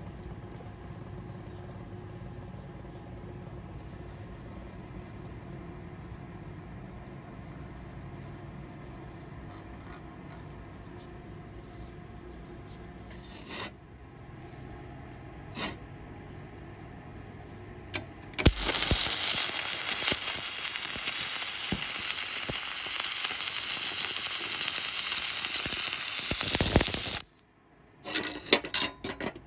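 Stick-welding arc on stainless steel crackling and hissing steadily for about nine seconds, starting a little past halfway and cutting off abruptly, followed by a few short crackles. Before the arc there is only a low steady hum with a couple of sharp clicks.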